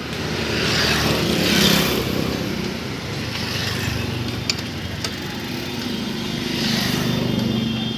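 Road traffic passing close by: vehicle engines and tyre noise swelling and fading twice. A couple of faint clicks come near the middle.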